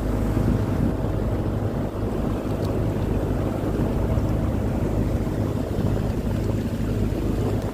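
Boat engine running steadily at low speed, a constant low drone, with water washing along the hull and wind on the microphone.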